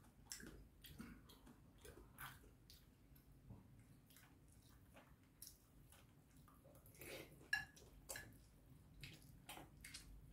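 Faint eating sounds: a metal spoon clicking and scraping in a ceramic bowl of curry rice, with chewing and small wet mouth noises. The clicks come irregularly, with a slightly louder one about seven and a half seconds in.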